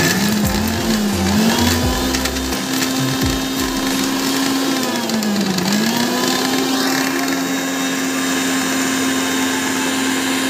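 Electric mixer grinder running at full speed, coarsely grinding ginger, garlic and chillies in its steel jar: a steady motor whine with blade whirr, its pitch dipping briefly about a second in and again around halfway.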